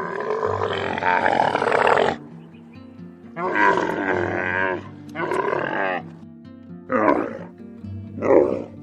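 Camel calling: a long call of about two seconds at the start, two calls of about a second each in the middle, and two short ones near the end, over background music.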